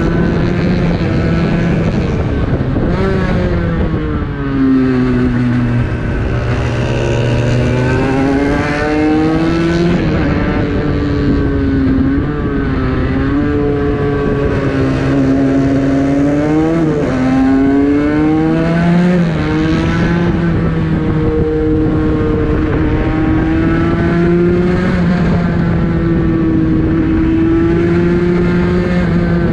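Aprilia RS 125's single-cylinder two-stroke engine heard onboard at racing speed, its pitch climbing through the gears and dropping at each shift and on braking for bends. Wind rushes over the microphone.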